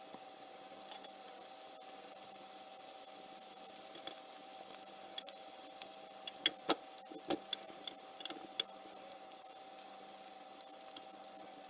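Bacon sizzling in a ridged griddle pan, a steady hiss under a faint hum. In the middle few seconds a run of sharp clicks and scrapes comes from the tongs knocking against the pan as the rashers are turned.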